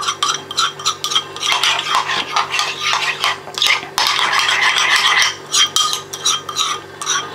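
A spoon stirring thick salad dressing in a ceramic bowl: rapid, irregular clinking and scraping against the sides of the bowl.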